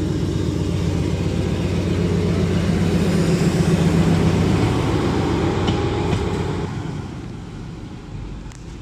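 Lxd2 narrow-gauge diesel-hydraulic locomotive's engine running as the locomotive passes close by and pulls away. Loudest about four seconds in, then fading as it moves off down the line.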